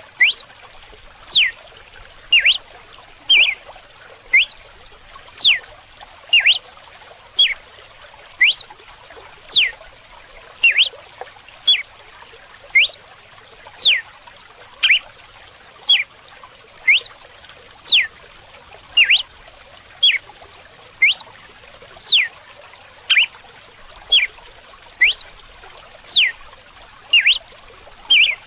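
Red-cowled cardinal (galo-de-campina) singing its whip-like 'açoite' song: a run of sharp whistled notes about one a second, short notes mixed with long falling sweeps, over a fainter steady trickle of running water.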